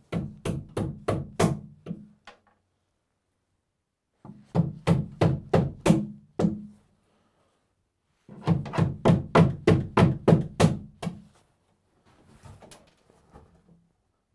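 Hammer blows on the protruding screw tips of a pine-board lid, knocking them over flat: three quick runs of about four blows a second with pauses between, each blow knocking on the wood. Faint handling sounds near the end.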